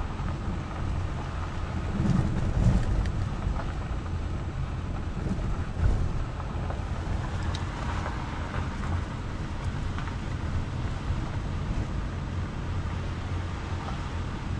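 Inside a car's cabin while driving on a gravel road: a steady low rumble of engine and tyres on the gravel, with a couple of louder thumps about two and six seconds in.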